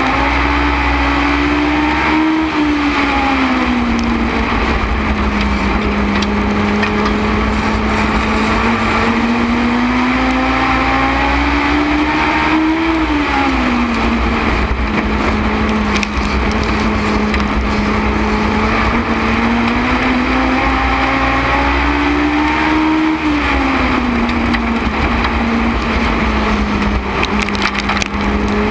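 INEX Legends race car's Yamaha four-cylinder motorcycle engine at racing speed, heard from on board: the pitch climbs slowly along each straight, then drops sharply as the driver lifts for the turns, about once every ten seconds.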